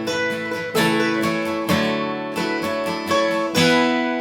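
Acoustic guitar strummed, chords struck about once a second and left to ring between the sung lines.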